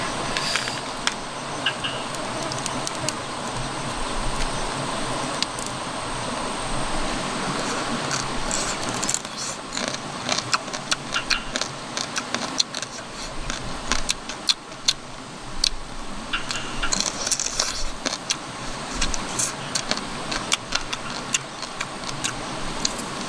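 Cooked crab being shelled by hand and eaten: the shell cracks and crackles as it is pulled apart, then comes crisp crunching and clicking as it is chewed. The sharp clicks grow thick about halfway through, over a steady background hiss.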